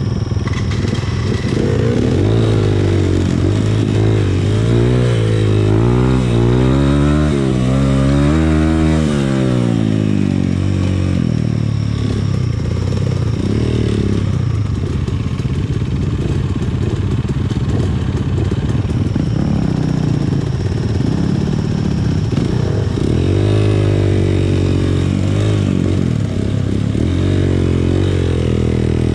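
Dirt bike engine revving up and down over and over, its pitch climbing and dropping as the throttle is opened and closed, with steadier running in between.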